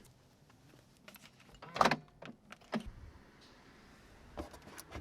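A few short knocks and clunks from handling a car, the loudest just under two seconds in, with lighter ones near three seconds and near the end.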